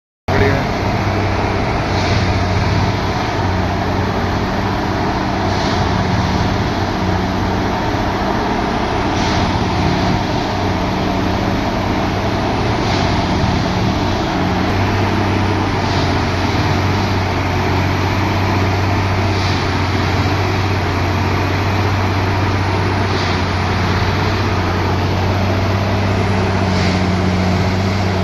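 Railway track tamping machine (a 3X 'packing' machine) running: a steady engine hum with a short, sharp higher sound repeating about every three and a half seconds, in step with its work cycle.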